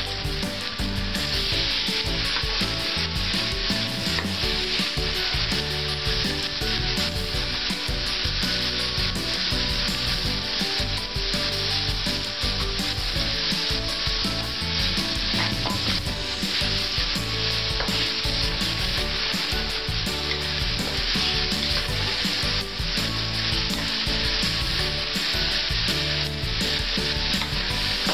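Chives, onion and sliced tomatoes sizzling in hot oil in an aluminium wok, a steady frying hiss, with a spatula stirring and scraping against the pan. This is the sauté (gisa) stage of a dish.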